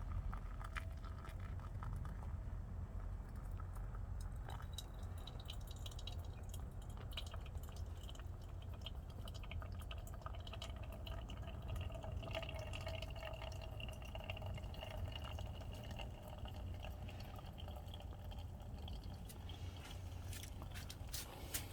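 Liquid trickling and dripping with small crackles over a steady low rumble. A faint thin tone comes in around the middle and fades again.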